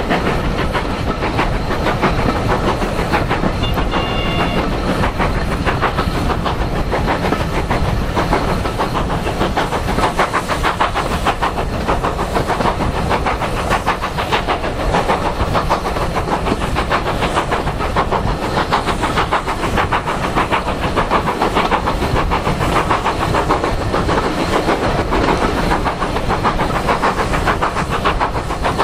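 Steam train running at speed, heard from a carriage window: the locomotive's chuffing and the carriages' wheels clattering over the rail joints make a steady, fast, even rhythm.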